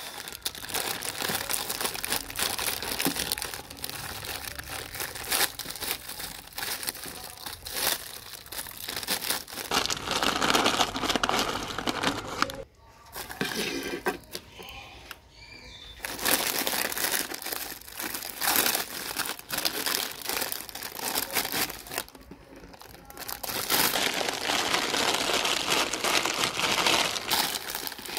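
Plastic biscuit packet crinkling as it is handled and emptied, with brief lulls about halfway through and again a little later.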